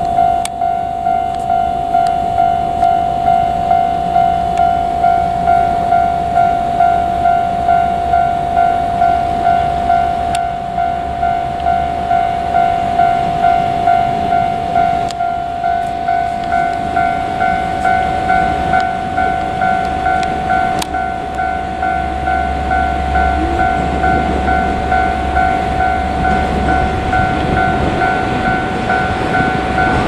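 Japanese level-crossing warning bell ringing steadily, a single electronic ding repeating about four times every three seconds. A train rumbles past, its low rumble swelling toward the end.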